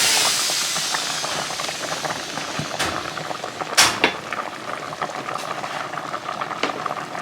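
Chicken stew in coconut milk boiling in a pot, a dense fine bubbling and popping, with a few sharp clicks, the loudest about four seconds in.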